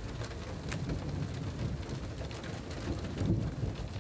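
Rain falling in a hailstorm, a steady patter with a few scattered sharp drop hits over a low rumble.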